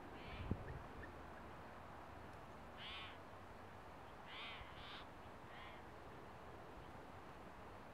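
Courting flickers giving five short, faint calls spread over several seconds, two of them close together in the middle. There is a brief low thump about half a second in.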